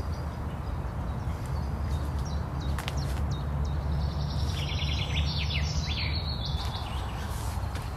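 A bird sings a quick run of high chirps about halfway through, over a steady low rumble.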